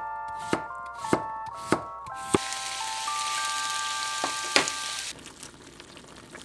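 Kitchen knife chopping through potato onto a wooden cutting board, five even chops about every half second, over a light chiming background melody. Then meat rolls sizzling in a frying pan for about three seconds, with two sharp clicks.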